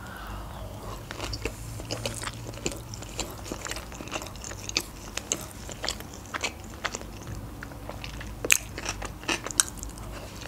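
Close-up mouth sounds of a woman eating sushi rolls: biting and chewing, with a steady run of wet clicks and light crunches, a few sharper ones about two-thirds of the way through.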